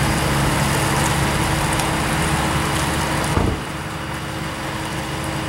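Pickup truck towing a trailer loaded with a side-by-side utility vehicle drives slowly past, its engine running with a steady hum. There is a short knock about three and a half seconds in, and the sound is quieter after it.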